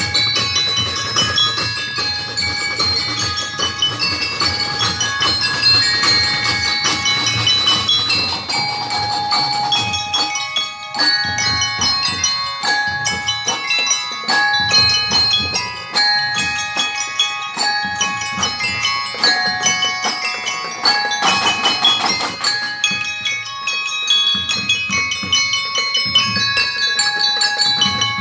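Drum and lyre band playing: mallet keyboards ring out a melody of bright struck notes over marching drums. A cymbal crash comes about two-thirds of the way in.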